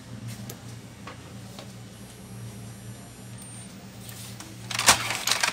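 Epson L120 inkjet printer running with a newly fitted print head: a steady low hum with faint ticks, then near the end the print head carriage moves across with a loud clattering whir.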